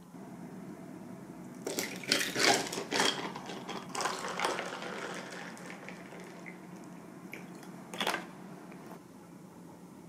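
Liquid poured from a plastic bottle into a glass of iced coffee, splashing and crackling over the ice for a few seconds and then fading, followed by a single sharp clink near the end.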